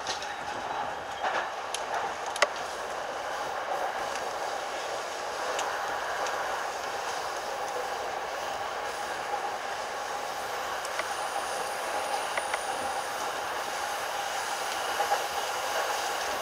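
A JR East E233/E231-series commuter electric train running at steady speed, heard from inside the leading car: a continuous rolling hum with scattered clicks from the rails, the sharpest about two and a half seconds in.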